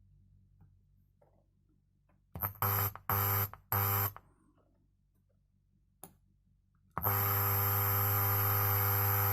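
Amplifier speaker giving out hum and hiss with no signal: three short bursts of it a little over two seconds in, then it comes on steadily about seven seconds in.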